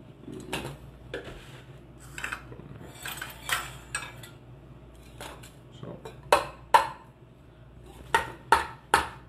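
Raw eggs knocked against the rim of a small stainless steel bowl to crack them. There is a scattering of light taps, then two sharp knocks about half a second apart just past the middle and three more near the end.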